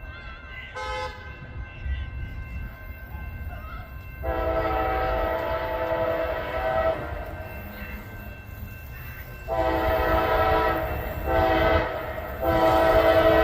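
Air horn of a CSX AC44CW locomotive leading a freight train, sounding a chord of several notes. It starts about four seconds in and blows long, long, short, long, the grade-crossing signal, and the last blast is still going at the end. A steady low rumble of the train runs underneath.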